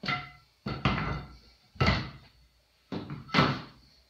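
Wooden table parts, 2x4 pine and Douglas fir aprons and legs, knocked and set down hard on a work table while the table is taken apart. About five sharp wooden knocks, roughly one a second, each ringing briefly.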